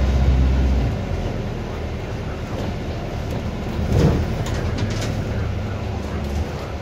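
Inside a moving Volvo B5LH hybrid double-decker bus: a steady low drivetrain hum and road noise. The low hum drops away about a second in, and a short louder knock comes about four seconds in.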